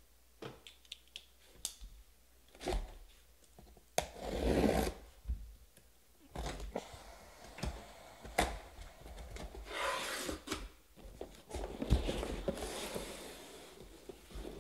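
A sealed cardboard case being cut and torn open along its packing tape: scattered clicks and taps with several longer tearing, scraping rushes, the longest near the end.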